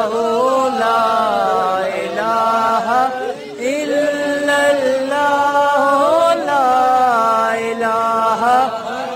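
Male voices chanting Islamic dhikr, melodic and drawn out, each phrase held for about a second over a steady sustained drone.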